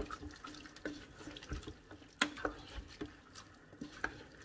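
Plastic spoon stirring chicken pieces, vegetables and stock in an electric pressure cooker's inner pot: wet sloshing and squelching, with irregular knocks of the spoon against the pot.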